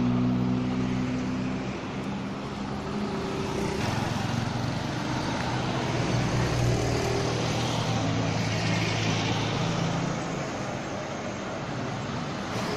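Heavy vehicle engine running steadily, its note shifting a couple of times, over a haze of road noise.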